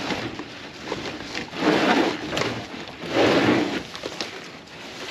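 Coiled corrugated plastic drain pipe, heavy with mud, being dragged and heaved into a metal trailer: two loud rough scraping, rustling bursts, about two and three seconds in.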